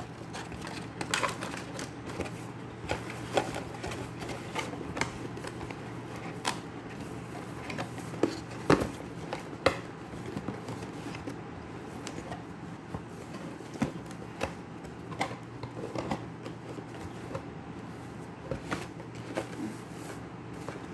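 Packaging being handled and opened: irregular clicks, taps and rustles, with one sharper knock near the middle, over a steady low hum.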